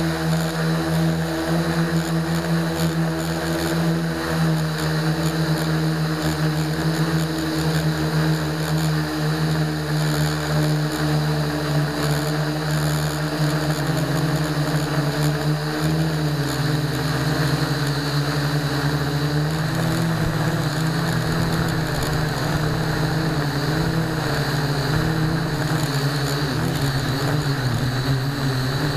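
Blade mQX micro quadcopter's four small brushed motors and propellers buzzing steadily in flight, heard from the camera mounted on the craft. The motor pitch shifts and wavers through the second half.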